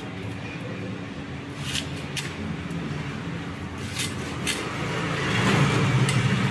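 Low rumble of road traffic that swells about five seconds in, with a few light clicks of a hilsa being worked against a boti blade.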